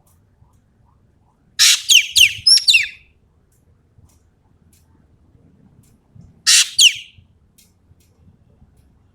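Sumatran common green magpie (ekek keling) giving loud, shrill, shot-like calls: a burst of about four quick downward-sliding notes about a second and a half in, then a shorter burst of two or three near two-thirds of the way through.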